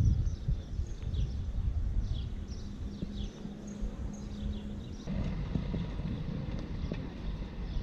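Wind rumbling on the microphone, with small birds giving many short, falling chirps for the first five seconds. After a cut about five seconds in, a steadier outdoor background hum.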